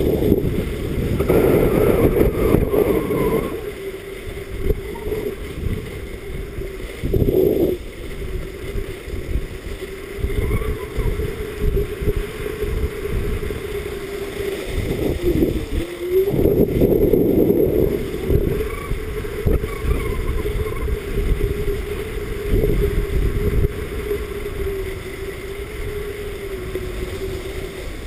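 Wind rushing and buffeting over the microphone of a camera skiing downhill, with a steady low hum running through it and louder surges a couple of seconds in, near a quarter of the way, and around halfway through.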